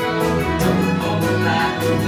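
Orchestral music with bowed strings playing held chords, part of an orchestral arrangement of the band's song; the harmony shifts about half a second in.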